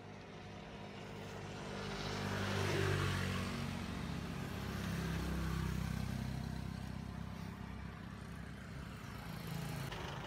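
A motor vehicle driving past: its engine hum grows louder over the first few seconds, stays up for a while, then fades away near the end.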